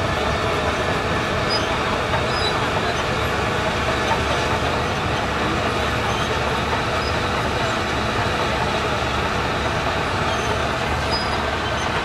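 Shantui DH17 LGP crawler bulldozer driving across loose soil, its diesel engine and steel tracks making a steady, dense running noise.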